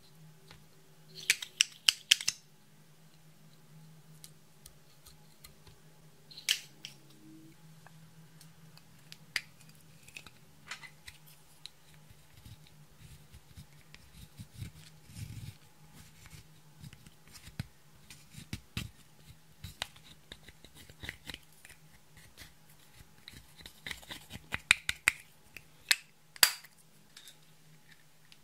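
Slime being handled and squeezed, giving sharp sticky clicks and crackling pops from trapped air, in clusters about a second in, around six seconds and again near the end, over a faint steady low hum.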